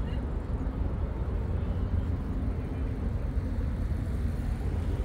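Outdoor city ambience: a steady low rumble of distant road traffic with a faint hiss above it.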